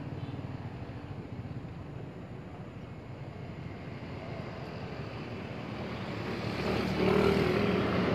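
A motor vehicle's engine running, with a steady low hum that grows louder near the end as it comes closer.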